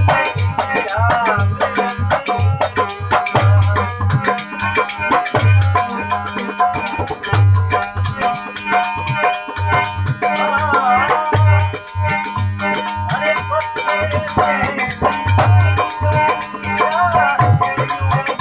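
Instrumental passage of a Rajasthani devotional bhajan: a regular low drum beat with dense rattling percussion under a wavering, ornamented melody line.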